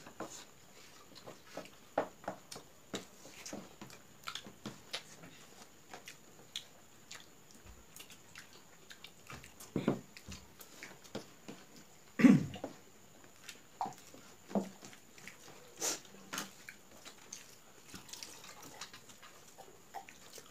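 Mouth sounds of people eating rice and egg curry by hand: chewing and lip smacks as scattered short clicks, with a couple of louder knocks about ten and twelve seconds in.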